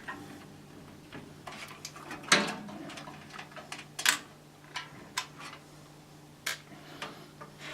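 Screwdriver working motherboard screws out of a PC case: scattered small metal clicks and clinks, the loudest about two and four seconds in, over a faint steady hum.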